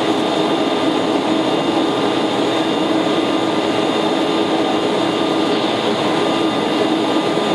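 Steady jet airliner cabin noise from a Boeing 757 in flight, an even roar with a faint steady hum.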